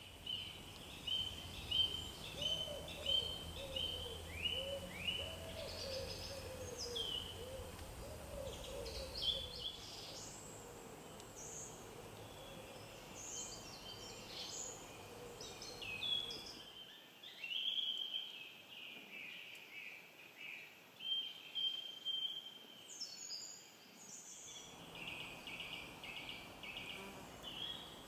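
Woodland birds singing in a morning chorus: many short, high phrases from several songbirds overlap. A lower call repeats over and over during roughly the first nine seconds.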